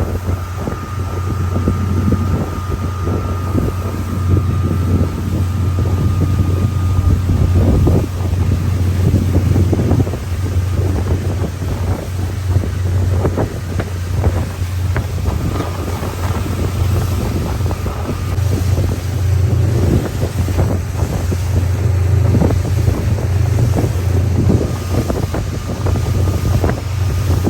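Motorboat running under way, its engine a steady low drone, with wind buffeting the microphone.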